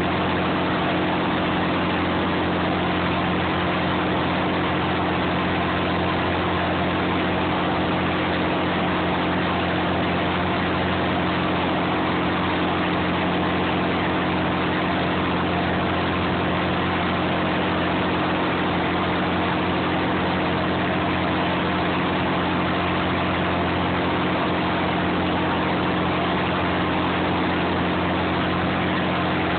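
Clam boat's engine running at a constant speed, a steady low drone with no change in pitch or level.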